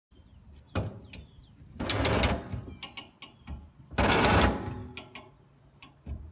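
Hand winch and old boat fuel tank being worked out of the hold: a short burst of scraping about a second in, two longer grating bursts around two and four seconds in, and sharp clicks and knocks between them.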